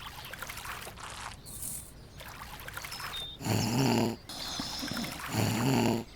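Two short animal-like cries, each under a second, the second near the end, over a faint trickling background.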